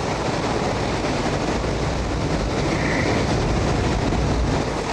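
Steady rush of aircraft engine and wind noise inside a skydiving jump plane's cabin at altitude.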